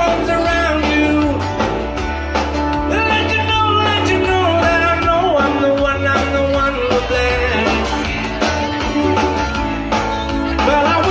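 Live rock band playing through a large outdoor PA, with a strong bass line under drums and guitars, heard from the crowd.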